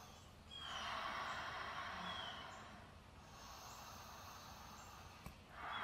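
A woman's deep, slow breath, one long soft hush lasting about two seconds, then the next deep breath beginning near the end.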